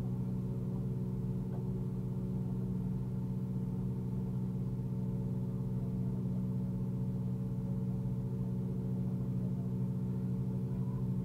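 Peugeot 207 rally car's engine running steadily at one even pitch, with no revving.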